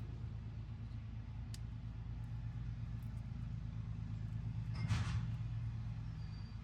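A steady low mechanical hum, with a light click about a second and a half in and a short burst of handling noise about five seconds in.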